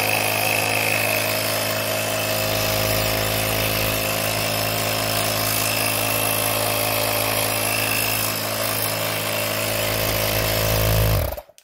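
AIKEZI XMDY-3 portable electric tyre inflator (120 W, 150 PSI mini air compressor) running steadily and loudly at a constant pitch with its air hose free, then cutting off abruptly near the end.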